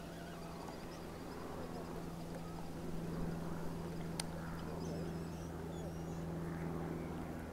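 Steady low engine hum, with faint handling of a fixed-spool reel as a small fish is wound in on a feeder rod, and one sharp click about four seconds in.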